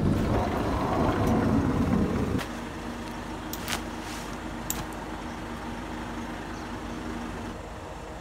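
A vehicle running, heard from inside the van as a low rumble. About two and a half seconds in it drops off sharply to a quieter steady hum with a few faint clicks.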